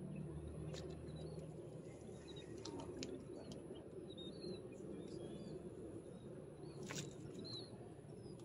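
Small birds chirping with short, high calls scattered through, over a steady low rumble. A few brief sharp clicks stand out, the loudest about seven seconds in.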